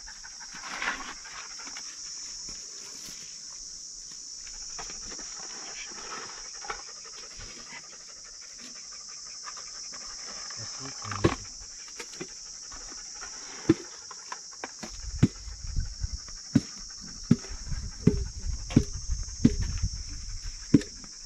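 Steady high-pitched insect drone. In the second half come irregular sharp knocks and thumps over a low rumble, from the recording phone being handled and moved about.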